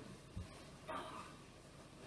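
A soft thump as a person moves onto a bed, with a brief rustle of bedding about a second in; otherwise quiet room tone.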